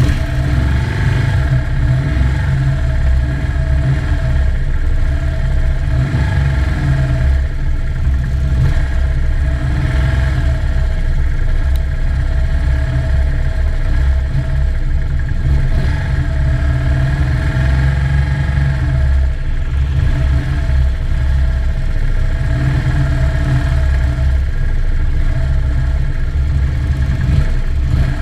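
Police motorcycle engines idling and running at walking pace, a steady low rumble picked up by a camera mounted on one of the bikes, with the engine note rising and falling a little as the procession stops and creeps forward.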